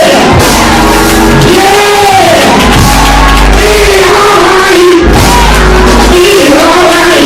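Loud church music with a voice singing or chanting in long rising-and-falling phrases, about one every two seconds, and shouts from the congregation.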